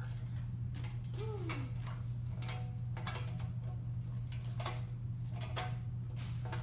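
Irregular light clicks and knocks from a child's small metal tricycle being ridden on a hardwood floor, over a steady low hum. A short falling vocal sound from a toddler comes about a second in.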